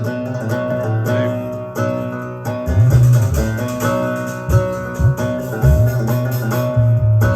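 Guitar music played back over a hi-fi system, with a deep bass line coming in about three seconds in.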